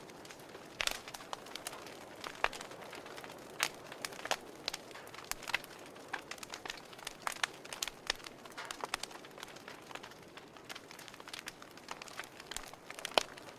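Wood fire crackling: irregular sharp pops and snaps over a soft steady hiss, with one louder pop near the end.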